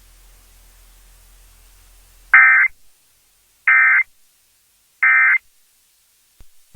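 Emergency Alert System end-of-message code: three short buzzing bursts of SAME digital data tones, about a second apart. A faint low hum comes before them.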